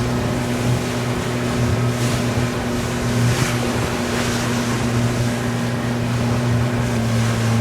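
A motorboat's engine running steadily under way, a constant low hum, with the rush of water and wind over the boat.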